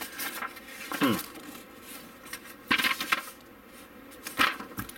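Sheets of paper rustling and flapping as an instruction booklet and paint-guide sheets are handled. There are a few short rustles: about a second in, around three seconds, and again near the end.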